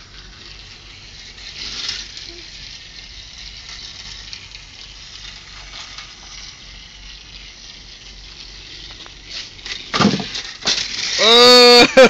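Motorized Thomas the Tank Engine toy train running along its plastic track, a steady quiet whirring hiss. About ten seconds in come a few sharp knocks, then a child's loud, held yell near the end.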